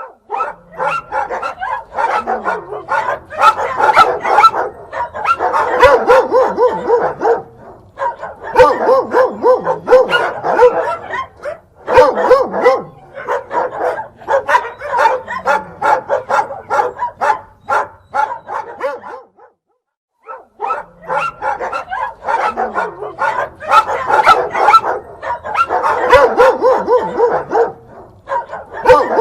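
Dog and puppies barking and yipping in quick, overlapping, high-pitched calls, breaking off briefly about twenty seconds in before starting again.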